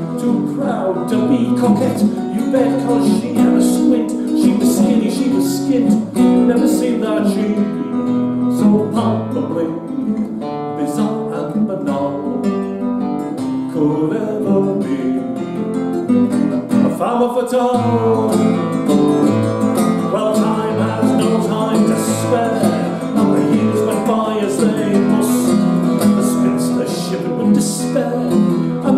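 A man singing a folk song to his own strummed nylon-string classical guitar accompaniment.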